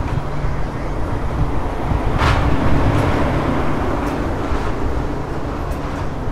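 Alishan Forest Railway train standing at the platform, its engine idling as a steady low hum, with a short hiss about two seconds in and a few fainter hisses later.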